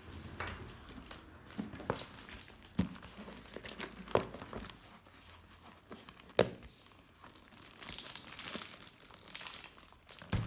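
Hands handling a satchel and crinkling its paper packing, with rustling throughout and a few sharp clicks and knocks, the loudest a little past the middle.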